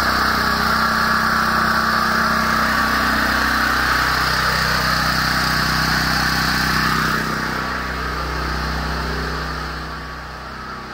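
Westinghouse WGen7500 portable gasoline generator running steadily under load, powering the house through a transfer switch. It gets quieter about seven seconds in and again near the end.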